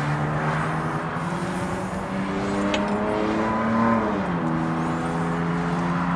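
An engine running, its pitch climbing steadily and then dropping sharply about four seconds in before holding steady, like a vehicle accelerating and shifting up a gear.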